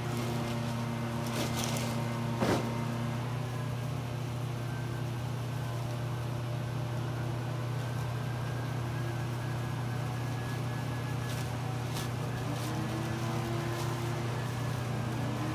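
Steady low engine-like hum with a fainter pitched tone that rises in steps, once near the start and again near the end. A few sharp clicks, with a louder knock about two and a half seconds in.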